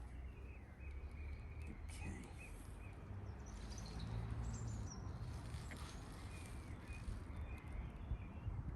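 Wind buffeting the microphone as a steady low rumble, with birds chirping in the background; no shot is fired.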